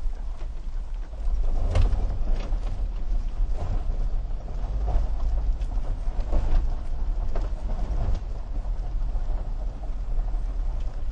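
A vehicle driving slowly over a rough gravel road, heard from inside the cabin: a steady low rumble with irregular knocks and rattles as the tyres hit bumps and stones.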